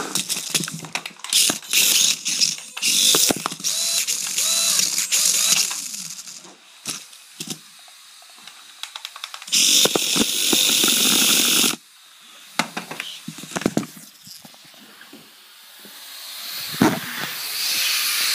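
Toy remote-control car's electric motor and gears whirring in short bursts as the throttle is worked on and off, with a longer run about ten seconds in and a whir building up again near the end.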